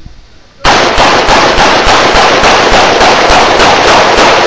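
A string of handgun shots fired in rapid succession, about three a second, starting about half a second in. The shots are very loud and heavily distorted, blurring into one another.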